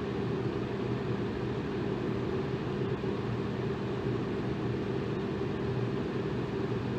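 Electric fan running steadily: an even rush of air, weighted toward the low end, with a faint steady motor hum underneath.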